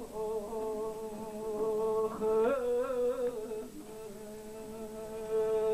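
A solo voice holding the long closing notes of a slow Persian song, with no instrument heard. The pitch rises and wavers briefly in the middle, then settles back to a steady held note, and rises again near the end.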